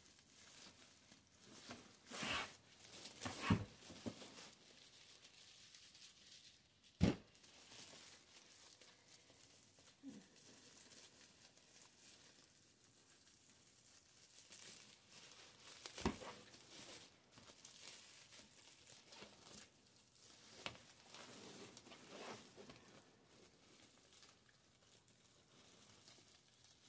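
Faint rustling and crinkling of deco mesh as hands pull out and separate the poofs on a wreath, in scattered bursts, with two sharp clicks, about a third of the way in and past halfway.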